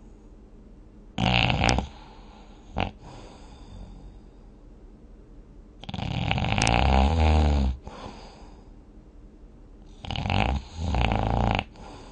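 Snoring in sleep, irregular: a snore about a second in, a brief one near 3 seconds, a long snore in the middle, and two snores in quick succession near the end.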